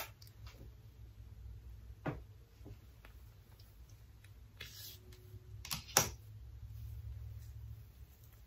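Scattered sharp clicks and taps from hands handling hair and small styling items, loudest as a double click about six seconds in, with a short hiss a little before that and a steady low rumble underneath.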